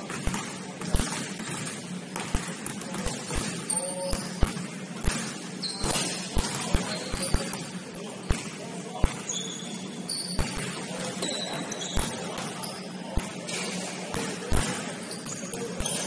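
Basketball game on a gym floor: the ball bouncing in irregular thuds and sneakers giving short, high squeaks, over a steady hum.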